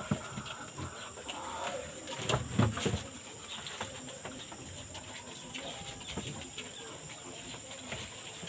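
Two-month-old piglets at feeding time, a run of short clicky mouth noises and brief animal calls, with one louder, deeper sound about two and a half seconds in.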